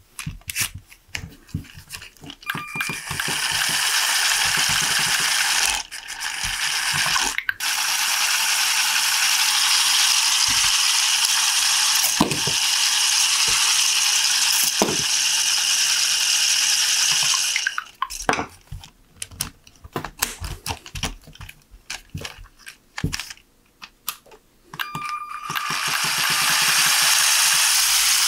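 LEGO parts clicking, then a pair of motor-driven rubber-tyred LEGO flywheels spinning with a steady loud whir for about fifteen seconds, with two sharp knocks as rolls of Rockets candy are fed through. After a spell of more clicking and handling, the wheels spin up again near the end.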